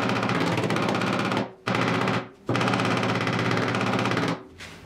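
Rapid, rattling power-tool hammering on the steel rear fender panel of a 1972 Triumph GT6, in three bursts with short breaks about one and a half and two and a half seconds in. The panel is held under tension by a pulling strap while the pushed-in accident damage is worked out.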